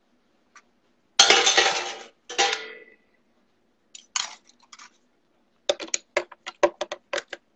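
Kitchen gear clattering as blended corn mash is emptied from a blender jar into a metal sieve: a loud clatter about a second in and a shorter one just after, then about a dozen quick, light knocks near the end.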